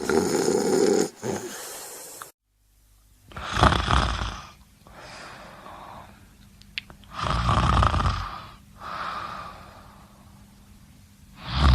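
A person snoring: a loud snore in the first second, a brief break, then two loud snores about four seconds apart, each followed by a softer, breathy out-breath.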